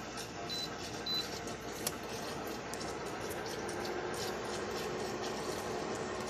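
Kenwood induction hob running under a can of tuna: a steady whir with two short high beeps near the start, and a steady hum that comes in about halfway and grows slightly louder.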